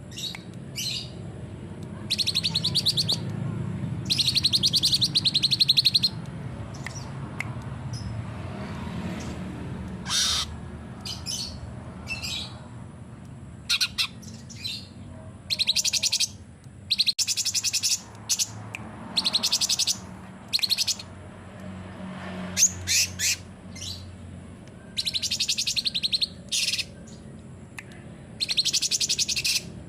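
Cucak cungkok songbird singing: repeated bursts of very rapid trilling, each lasting one to two seconds, with shorter chirps between them, over a low steady background rumble.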